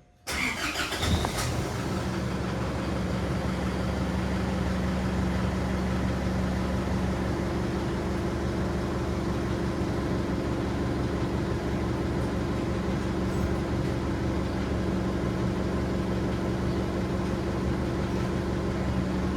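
A 2007 Isuzu D-Max pickup's engine is started: a short burst of starting noise about half a second in, then it settles into a steady idle.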